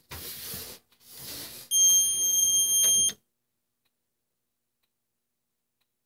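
Soft handling rustle, then about two seconds in a fire alarm panel's piezo buzzer sounds one steady, high-pitched beep for about a second and a half and cuts off abruptly.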